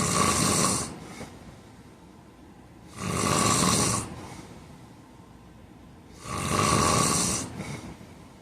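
A man snoring in his sleep: three snores about three seconds apart, each lasting about a second and followed by a brief fainter breath.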